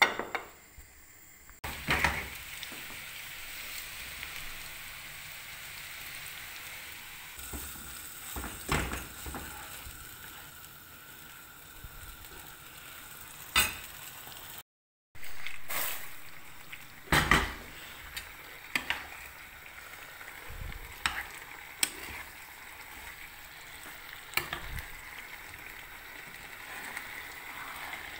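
Sauce of swordfish, aubergine and cherry tomatoes sizzling in a frying pan, with a metal spoon stirring it and knocking against the pan every few seconds.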